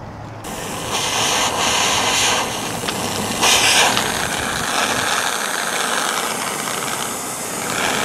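Handheld gas blowtorch burning with a steady hiss, heating a wire joint for soldering. It starts suddenly about half a second in and swells louder twice.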